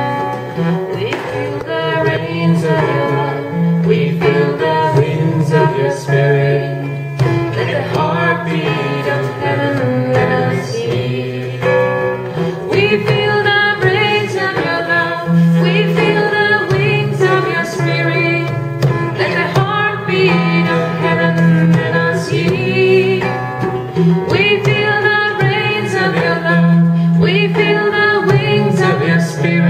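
Live devotional song: a woman singing, with an acoustic guitar strummed and a hand drum struck under the voice, over steady sustained low notes.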